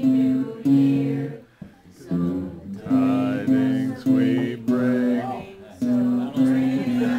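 Bass guitar playing a tune in separate held notes, with a short break about a second and a half in.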